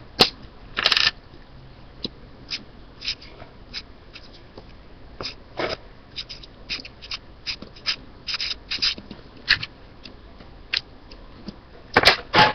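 Marker drawing on a small slip of paper on a wooden table: irregular short scratches and taps. Near the end there is a cluster of louder rustles and knocks as the paper is handled.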